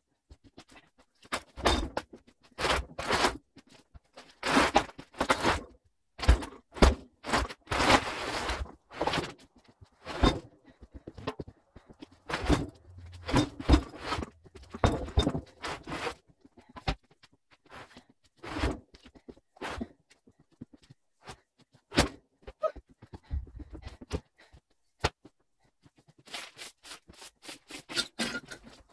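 Irregular knocks, thuds and scraping, some in quick clusters and a few longer scraping stretches, like material being handled and dropped.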